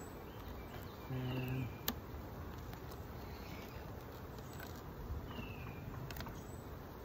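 Honeybees humming steadily around an open hive while frames are pried apart with a metal hive tool: a short low hum about a second in, then a sharp click of the tool on the wooden frames, with fainter clicks near the end. Birds give a few short falling chirps.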